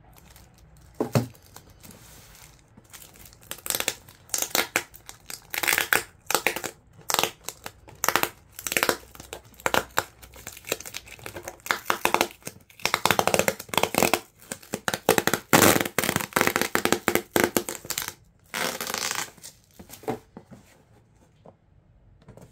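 Packaging being unwrapped by hand: irregular bursts of crinkling and rustling wrapping, with a single sharp click about a second in.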